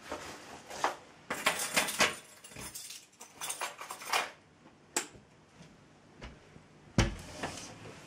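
Close handling noise: irregular rustling, light clicks and clatter, with a sharp thump about seven seconds in.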